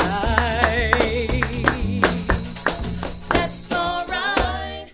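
A man sings a Gullah spiritual with a wavering voice, backed by plucked upright bass and steady rhythmic hand claps. The music cuts off abruptly near the end.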